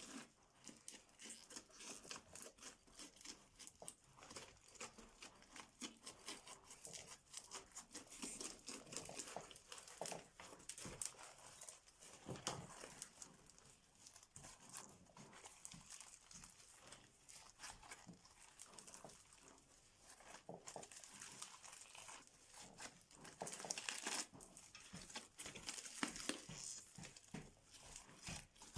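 Crunchy slime being worked by hand: a dense, irregular run of small crackles and pops.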